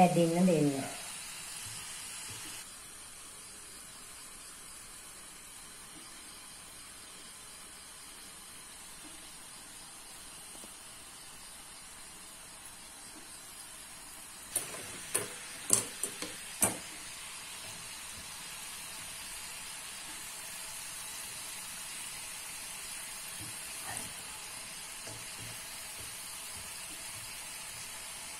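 Hot oil sizzling steadily as pieces of anoda mal dough deep-fry in a pan. A few sharp clicks or taps come in a quick cluster about halfway through.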